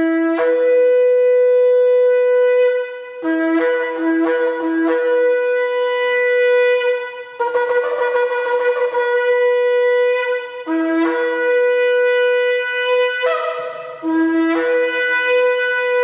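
A long antelope-horn shofar, about 114 cm, blown in a series of about five loud blasts. Most blasts start on a short lower note and jump up to a long held higher note, and one has a few quick breaks back and forth between the two notes.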